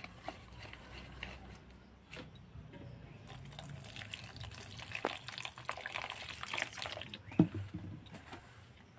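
Water is poured from a plastic jug into a steel bowl of flour-and-egg batter while a wire whisk stirs it, clicking against the bowl. There is one sharp knock about seven seconds in.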